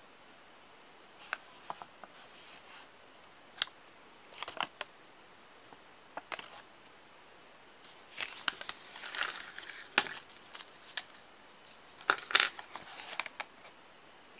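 Hands handling a Kinder Surprise egg's small plastic toy and its paper instruction leaflet: scattered sharp clicks and taps of plastic parts on a tabletop, with stretches of paper rustling in the second half.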